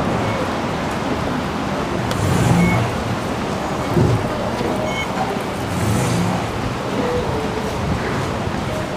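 Steady background noise of a busy underground metro station concourse, with a few short electronic beeps from the fare gates as passengers tap through and a thump about four seconds in.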